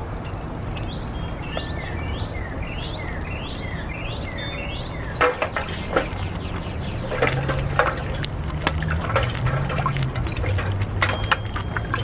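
Water poured into a pot of boiling water over an open wood fire, with irregular sharp pops and crackles from about five seconds in, over a steady low rumble. A bird repeats a short call about twice a second during the first few seconds.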